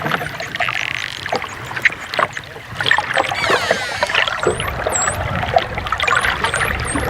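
Dolphins clicking in rapid, irregular trains, with a descending many-toned squeal about three and a half seconds in and then a string of short, high whistles that dip and rise, over a steady wash of water noise.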